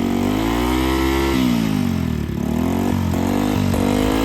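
Motorcycle engine, a Hero HF Deluxe's single-cylinder four-stroke, running through an aftermarket RX100-style silencer and being revved up and down several times, its pitch rising and falling.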